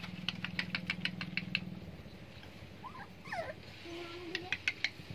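Puppies eating from a shallow tray, two quick runs of sharp wet clicks from lapping and mouthing at the food, with a short high puppy whimper in the middle. A steady low hum runs under the first two seconds.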